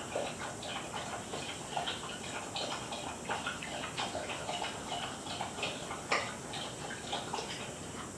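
Light ticking: small, sharp clicks a few times a second, not quite evenly spaced.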